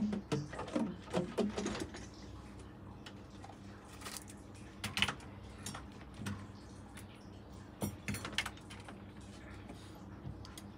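Saxophone keys clicking as they are pressed and released by hand, pads tapping shut on the tone holes: a quick run of clicks in the first two seconds, then a few scattered single clicks.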